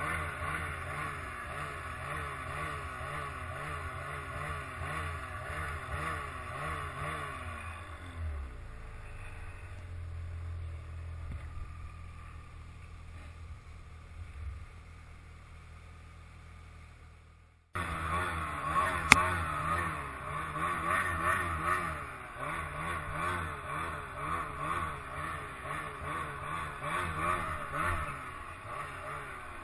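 Snowmobile engine running under the rider, its pitch rising and falling quickly with the throttle as it works through deep snow. About eight seconds in it drops to a lower, quieter, steadier idle. After an abrupt cut it returns to the same rising and falling note, with one sharp knock shortly after.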